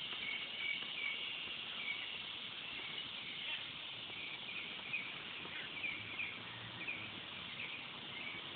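A steady high buzz of insects, with short high chirps at irregular intervals, about once a second.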